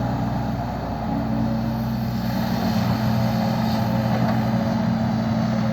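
Heavy diesel engine running steadily, with a slight rise in engine speed about a second in.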